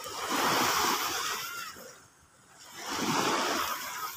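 Small waves breaking and washing up a sandy beach, two surges of wash about two seconds apart.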